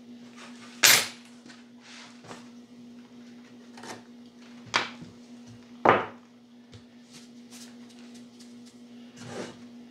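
Sharp wooden knocks and clatters as pine strips are set down and positioned in a wooden jig box on a workbench: the loudest about a second in, two more near the middle, and a few lighter taps, over a steady low hum.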